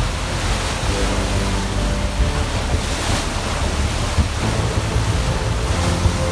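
Rushing water from a paddle steamer's paddles and wake, with wind buffeting the microphone.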